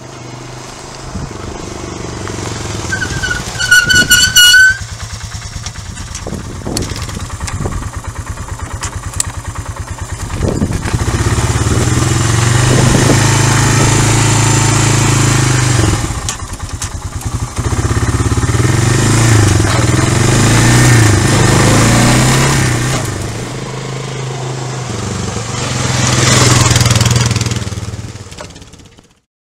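Honda Big Red 4x2 quad bike's engine running as the bike approaches, with a loud horn beep about four seconds in. The engine then idles with an even pulse and is revved up and held several times.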